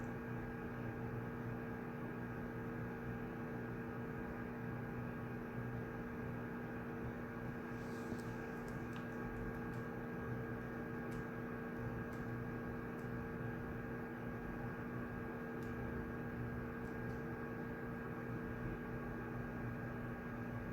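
Study-room ambience: a steady electrical hum over low room noise, with a short faint rustle about eight seconds in and a few faint ticks after it.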